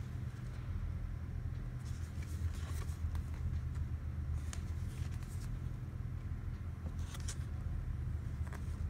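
Faint rustling and scraping of the white card packaging of an Apple Watch sport band box as it is handled and turned over, in several short bursts over a steady low hum.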